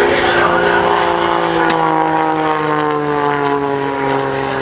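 Single-engine aerobatic propeller plane in flight overhead, its engine and propeller drone sliding steadily down in pitch as it flies past.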